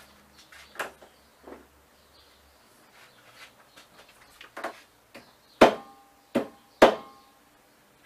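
A hammer striking an old mobile phone on its screen: a few light knocks, then three hard blows in quick succession near the end, each followed by a brief ring.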